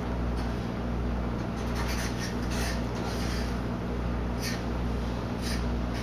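Cat chewing and tugging at bouquet leaves: a handful of short, crisp crunches and rustles, irregularly spaced, over a steady low hum.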